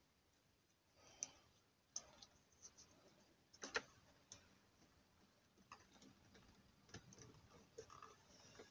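Faint, scattered small clicks of hands fitting insulated crimp connectors onto car-radio wiring, the sharpest a little under four seconds in.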